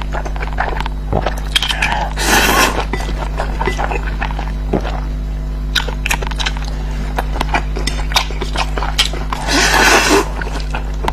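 Close-miked eating: many short wet chewing and mouth clicks, with two longer noisy bursts, one about two seconds in and one near the end, over a steady low hum.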